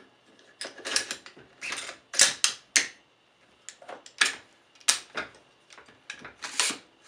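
AR-15 charging handle and bolt carrier group sliding into the upper receiver and the receivers being handled: a series of sharp metallic clicks and short sliding scrapes, the loudest a little over two seconds in.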